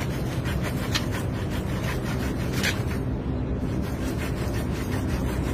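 A steady low machine hum, with rubbing and two sharp clicks from hands working a kitten out of a black pipe.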